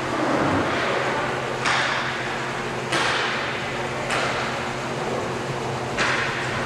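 Inline hockey play echoing through a large indoor rink: about four sharp clacks of stick and puck, each trailing off in the hall's echo, over a steady hum.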